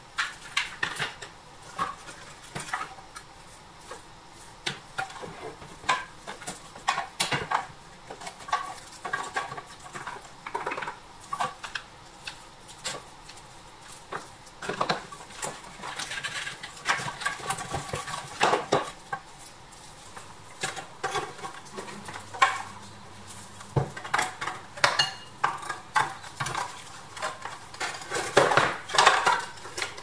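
Irregular metallic clinks, taps and knocks of the parts of an old metal toy bulldozer being handled and worked on, in clusters with short pauses.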